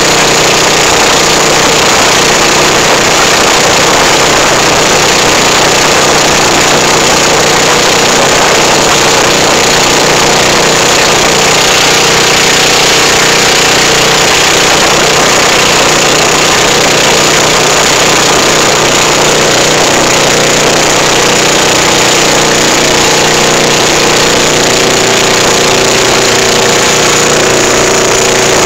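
Motor of a Philippine outrigger boat (bangka) running steadily under way, loud and unchanging, with a steady hum under a dense hiss.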